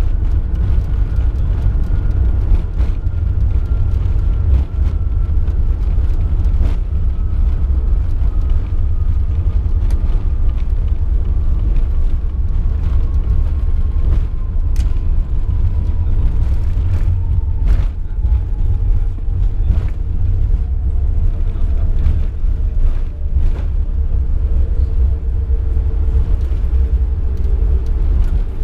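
Airbus A380 cabin noise on final approach: a steady deep rumble, with a faint whine that slides slowly down in pitch, then a steady hum in the last few seconds.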